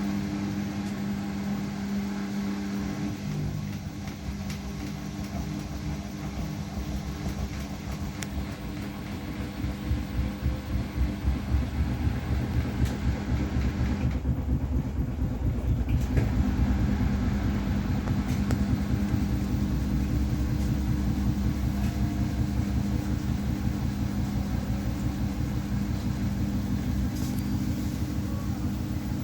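Samsung Series 5 8 kg front-loading washing machine spinning with an unbalanced load: a steady motor hum, joined from about a third of the way in by a rhythmic low pulsing that grows louder as the drum speeds up.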